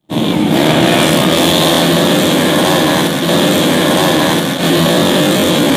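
Several small underbone racing motorcycles running hard through a corner, their engines a dense, steady buzz with brief dips.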